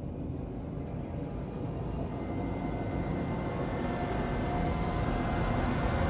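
Logo-intro sound effect: a low rumble and whoosh that slowly swells louder and brighter, building up like a riser.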